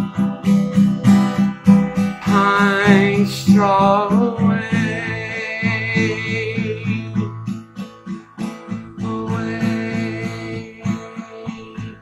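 Acoustic guitar strummed in a steady rhythm, with a man singing over it in two phrases, one starting about two seconds in and another near the end.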